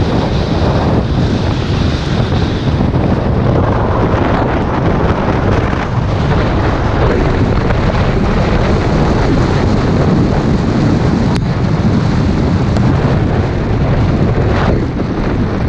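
Strong wind buffeting the microphone: a loud, steady rumble of wind noise.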